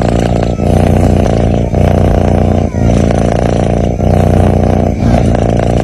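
A sleeping cat's loud, buzzy rumbling breath sound, continuous and steady, with a brief break about once a second as each breath turns between in and out.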